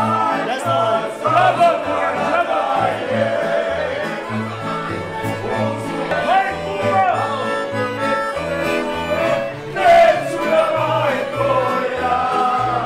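Croatian folk band playing live: strummed tamburicas and accordion over a plucked bass line, with voices singing along in a wavering melody.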